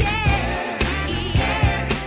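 Background pop music with a sung vocal over a steady drum beat.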